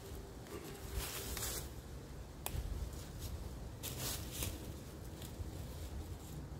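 Dry fallen leaves and a tarp rustling as someone moves about and handles the tarp, in a few short bursts, with one sharp click about two and a half seconds in.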